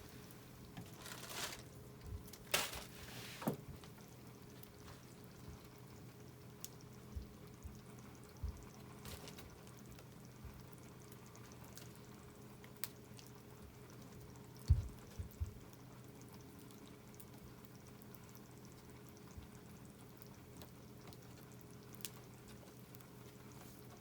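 Scrap-lumber wood fire burning with a faint steady hiss and scattered sharp crackles and pops, and a few short hissing surges in the first few seconds.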